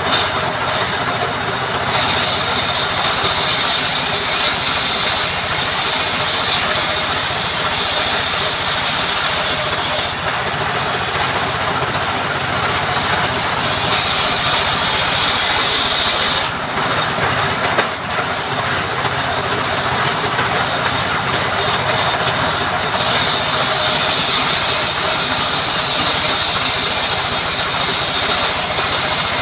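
Power saw running and cutting wood. A steady mechanical noise, with a brighter, higher edge that comes in three long stretches: from about 2 to 10 seconds in, from about 14 to 16 seconds in, and from about 23 seconds in almost to the end.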